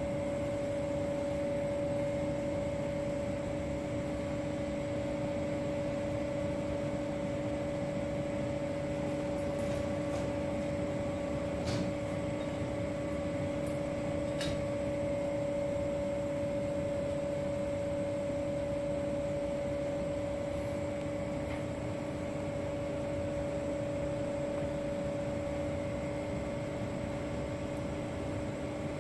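Steady machine hum with two constant tones, like running ventilation or electrical equipment, with two faint clicks about twelve seconds in and again a couple of seconds later.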